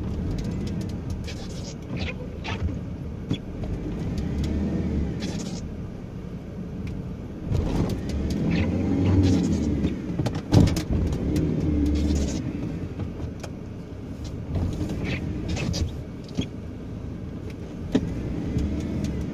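Car engine running, heard from inside the cabin, with scattered clicks and knocks; one sharp knock comes about ten and a half seconds in.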